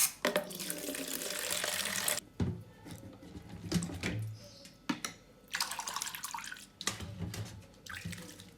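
Water running into a container for about two seconds, then a few knocks, and a second, shorter rush of water partway through. This is soapy water being readied for wet sanding.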